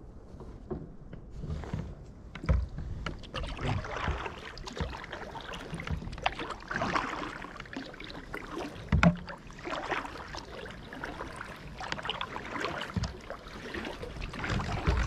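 Sea kayak paddle strokes on calm water: the blades dip and pull, and water splashes and drips off them in repeated swells. Two low knocks are heard, the louder one about nine seconds in.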